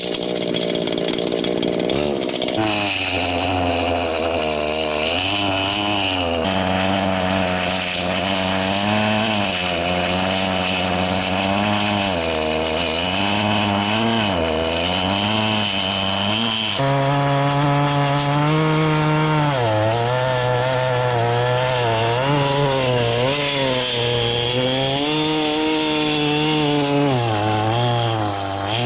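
Large old Husqvarna chainsaw running under load while cutting a big log, its engine note sagging and recovering over and over as the chain bites into the wood. About 17 seconds in, the pitch and loudness step up.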